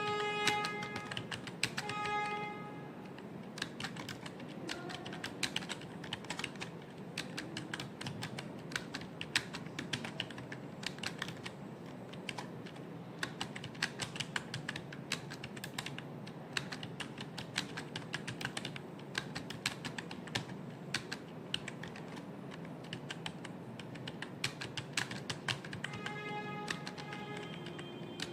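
Fast typing on a computer keyboard: a dense, uneven run of key clicks. Held notes of background music sound over it at the start and again near the end.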